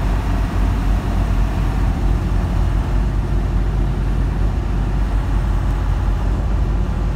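Steady low rumble of a semi-truck's engine and road noise on wet highway pavement, heard from inside the cab.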